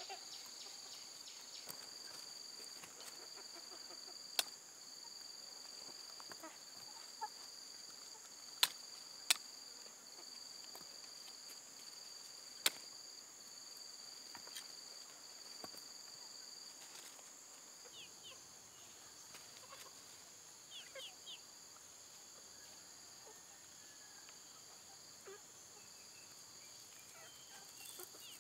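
Steady high-pitched insect chorus in the field, with a few sharp clicks and snaps as jicama roots are cut and handled.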